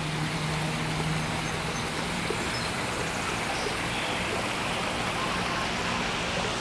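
Steady, even rushing background noise outdoors, with a faint low hum in the first couple of seconds.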